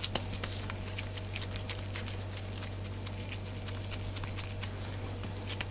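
Hands patting and pressing raw minced beef into a burger patty: a run of soft, irregular pats, several a second.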